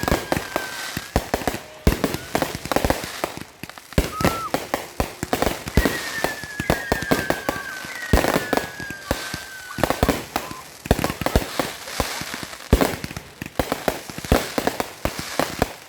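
Fireworks finale: a dense, rapid barrage of bangs and crackling, with several long whistling tones gliding slowly down in pitch over the bangs.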